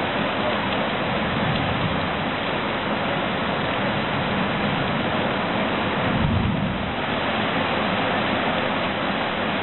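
Heavy rain falling steadily on palm fronds and the ground, a dense even hiss, with a brief low thump about six seconds in.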